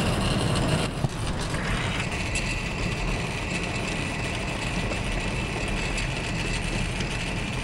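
Silo unloader machinery running with a steady mechanical hum. There is a click about a second in, and a steady high whine comes in about two seconds in and holds.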